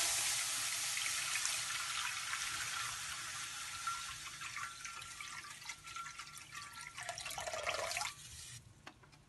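Water pouring from a jug into a steel kadai, a steady splashing stream that slowly gets quieter and stops about eight and a half seconds in.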